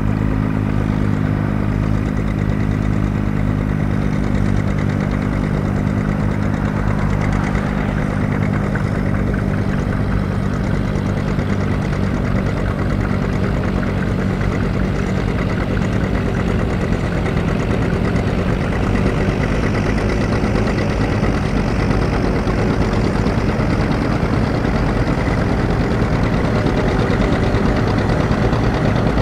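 Antique farm tractor engines running steadily under plowing load, John Deere two-cylinder tractors passing close. The engine sound turns rougher after about eight seconds and grows a little louder in the last third.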